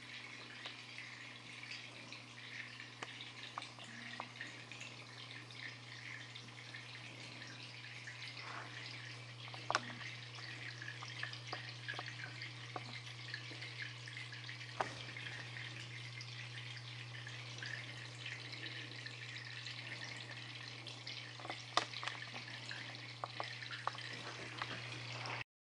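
Water trickling down a shallow homemade clay channel, a steady hiss with scattered small drips and a few sharp clicks, over a steady low hum.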